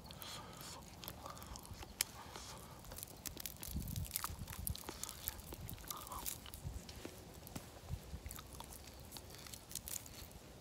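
A person eating roasted sweet potato close to the microphone: chewing with many small mouth clicks and smacks, and a few soft knocks of handling.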